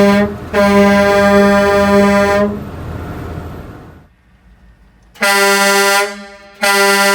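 Air horn sounding four loud blasts of one steady low tone: a short one, a long one of about two seconds, then after a pause two more of about a second each.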